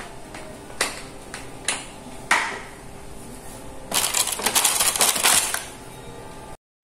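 Kitchen handling sounds: three sharp taps as rice is packed and turned out of a green plastic cup mould into banana-leaf-lined bamboo baskets, then about a second and a half of dense rustling and crackling.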